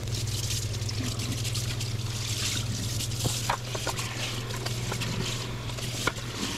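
Kitchen faucet running onto a wet shirt as it is rinsed by hand in the sink, water trickling and splashing off the cloth.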